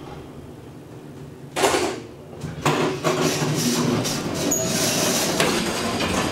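Elevator car: a low steady hum, then a loud knock about a second and a half in, followed by a continuous mechanical clatter from about three seconds on.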